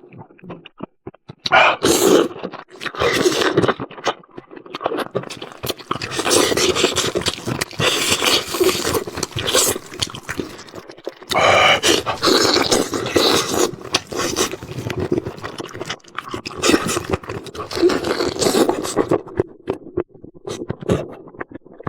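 Close-miked eating sounds: a person chewing and gnawing food in dense, irregular bursts, with short pauses about a second in and about 11 seconds in.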